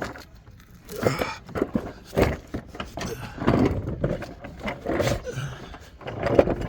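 Irregular rustling, shuffling and knocks of a person getting down and moving under a car with a handheld camera, with no engine running.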